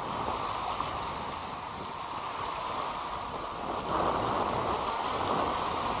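Wind-driven waves washing onto a rocky shore, with wind buffeting the microphone; the sound grows louder about four seconds in.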